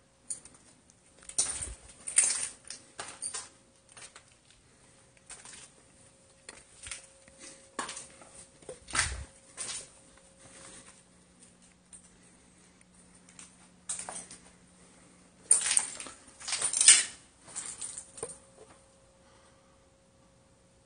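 Footsteps crunching over debris and broken glass, with irregular clinks and scrapes, loudest in clusters around two seconds in, nine seconds in and near the end, over a faint steady hum.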